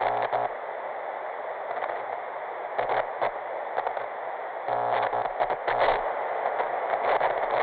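Signal-loss sound effect of TV static: a steady hiss of noise broken every few seconds by short stuttering glitch crackles.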